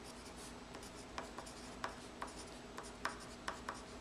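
A red pen writing capital letters on paper: faint scratching strokes broken by irregular light taps as the tip meets the page.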